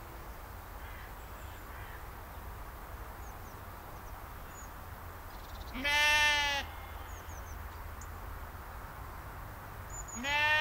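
Sheep bleating twice, about four seconds apart, each a loud call lasting under a second, over a steady low background hum.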